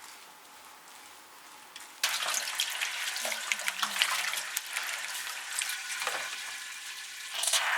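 Shower water spraying onto a puppy's coat during a bath: a steady hiss with fine crackles that starts suddenly about two seconds in.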